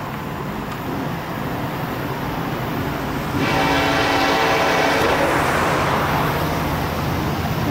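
Freight train rolling past with a steady low rumble, then about three and a half seconds in the horn of the lead Ferromex SD70ACe locomotive sounds a long, steady multi-note chord that holds almost to the end, with a car passing on the road partway through.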